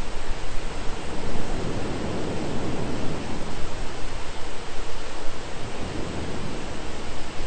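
Steady heavy rain, an even hiss with no distinct drops or rhythm, swelling briefly in the lower range about two seconds in.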